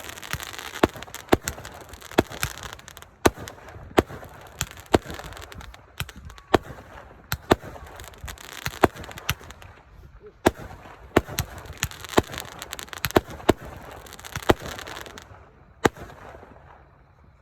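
Consumer fireworks going off in quick succession: sharp bangs, often in pairs or triplets, with crackling between them. The volley dies away about a second before the end.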